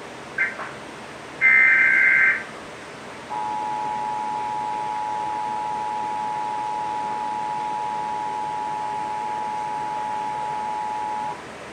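Emergency Alert System broadcast alert: a brief blip, then about a second of the digital header's high, screechy data tones, then the two-tone EAS attention signal held steady for about eight seconds before it cuts off.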